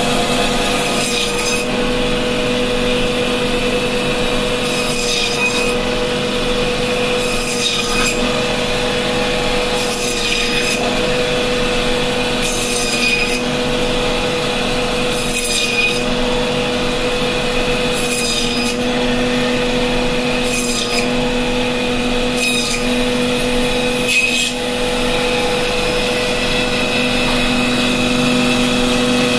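Electric band saw (bone saw) running with a steady motor hum, its blade slicing a whole hilsa fish into steaks. Each cut through the fish gives a short rasping burst, about ten of them, every two to three seconds.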